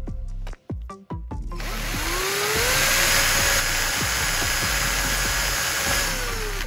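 Background music with plucked notes, then about a second and a half in an electric drill spins up and runs steadily, its bit boring through a dead LED chip on the bulb's metal circuit board; the motor whine drops away near the end as the drill winds down.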